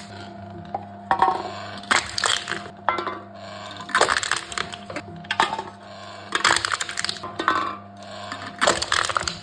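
Aluminium drink cans being crushed in a crushing machine: a string of crunching, crackling crumples about every half second to a second, over a steady low hum.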